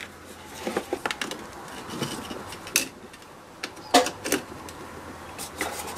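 Metal alligator clamps of a battery tester clicking and clattering as they are handled and clipped onto a car battery's terminals: a few scattered clicks and knocks in small clusters.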